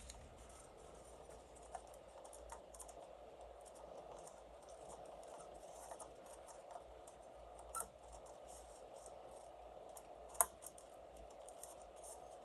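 Faint scraping and small plastic clicks of a DDR4 RAM stick being handled and pressed into a motherboard memory slot, with two sharper clicks about eight and ten seconds in.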